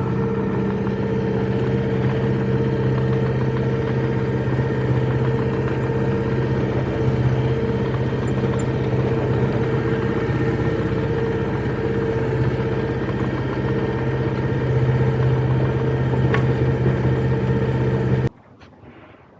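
Yanmar SV05 micro excavator's diesel engine running steadily at a mid pitch; the sound cuts off suddenly near the end.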